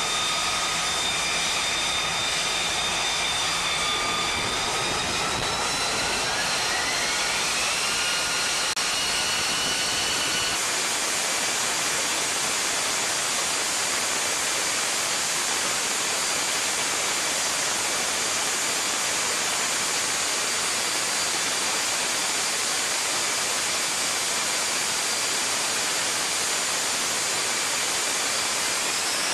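F-35B's F135 jet engine running on the deck with a high turbine whine. The whine climbs in pitch about four to eight seconds in as the engine spools up. From about ten seconds it turns into a steady, full jet roar: the engine at high power, run up for a short takeoff.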